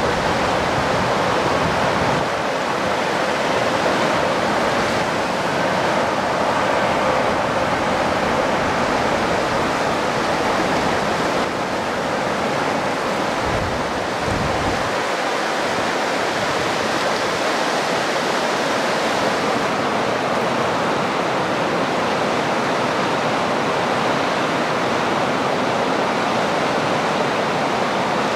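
Rushing river rapids: a steady hiss of water running over rocks. A low rumble underneath stops about halfway through.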